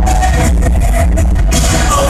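Live pop song played loud over a venue PA: a singer's held melody over music with heavy, steady bass.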